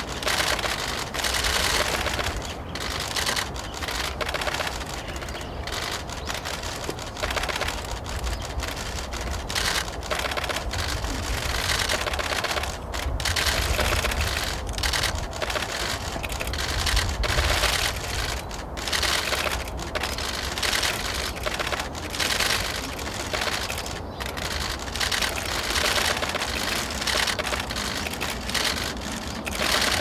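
Camera shutters from several cameras firing in rapid continuous bursts, the clicks overlapping into a dense clatter, over a steady low rumble.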